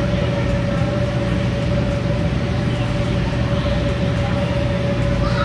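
A steady machine drone: even noise with a low rumble and one constant mid-pitched hum.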